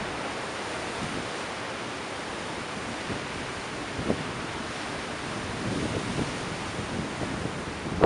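Ocean surf rushing steadily, with wind buffeting the microphone in a short low thump about four seconds in and a few more gusts near the end.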